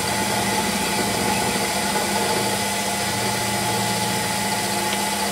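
Warco lathe running with a 12 mm end mill, gently milling a slot in a shaft collar held on a milling slide; a steady, even machine hum with the light noise of the cut.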